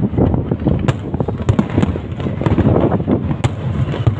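Fireworks bursting in quick succession: a dense crackle of many small cracks over a continuous low rumble of booms, with two sharper cracks, about a second in and near the end.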